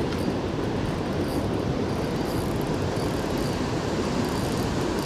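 Steady rush of flowing river water, an even low noise that doesn't change.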